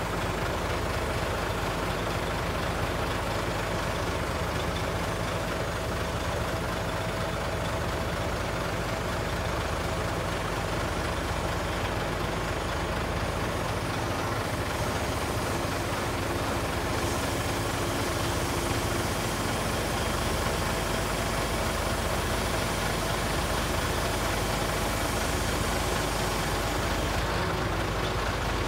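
Scania truck's diesel engine running at a steady idle while the Hiab loader crane is worked hydraulically, its boom moving.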